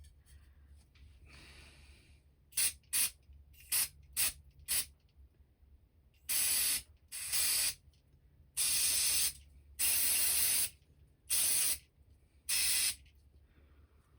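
Aerosol spray blasted into the jet holes of a Stihl MS200T chainsaw carburettor to clear them: five quick short bursts, then six longer hisses of about a second each.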